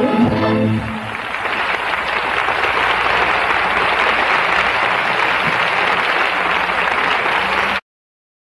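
The orchestra's final chord dies away in the first second, then a large audience applauds steadily until the sound cuts off suddenly near the end.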